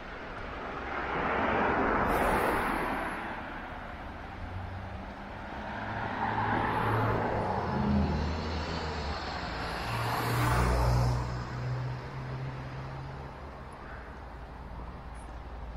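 Cars driving past one after another: three passes that each swell and fade, with a low engine hum under the tyre noise.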